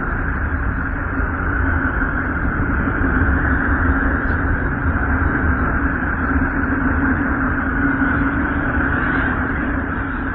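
Steady droning hiss with two held hums in it, one low and one higher: radio emissions from Uranus converted into sound.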